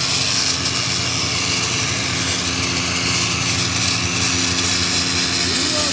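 A small engine running steadily in the background: an even, unbroken drone with a constant hum.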